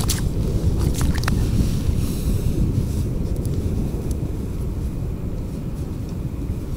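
Wind buffeting the microphone on open ice: a steady, loud low rumble. A few sharp clicks sound in the first second and a half.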